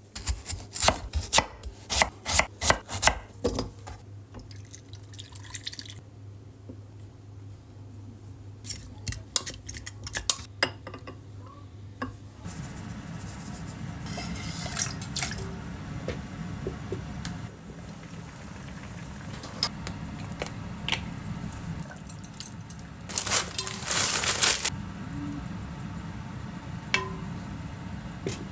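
Dishes and cutlery clattering in a kitchen, then a steady stream of tap water running from about twelve seconds in, louder for a moment near the end: washing up.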